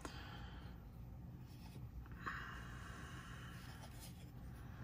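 Faint handling of a plastic Suunto MC-2 mirror compass being turned over in the hands, with a light click near the start and a soft exhale a little over two seconds in.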